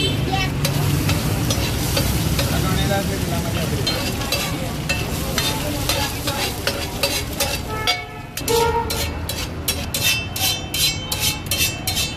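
Steel spatula scraping and chopping boiled egg in oil on a hot flat iron griddle, with steady sizzling. From about seven seconds in, the spatula strikes the griddle in a fast run of sharp metal clacks, about four a second.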